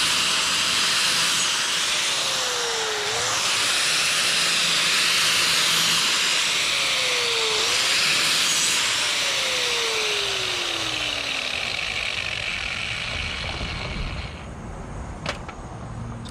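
Handheld angle grinder with a 36-grit flap disc running and lightly grinding the burr off the back edge of a steel lawn mower blade. Its pitch dips briefly a few times as the disc bears on the blade. It stops near the end, followed by a couple of light clicks.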